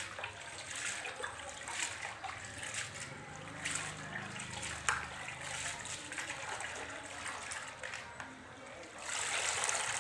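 Hands swishing and squeezing shredded carrots in a plastic basin of water, with small splashes and trickles. Near the end a handful is lifted out and water pours back into the basin, the loudest part.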